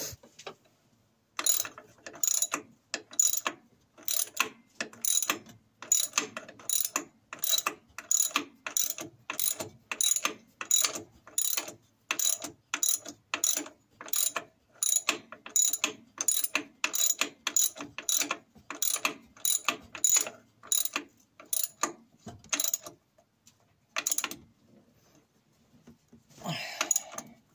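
Socket ratchet wrench clicking in short, quick back-strokes, about two a second, as it runs a nylock nut down onto an engine mount stud; the strokes stop a few seconds before the end.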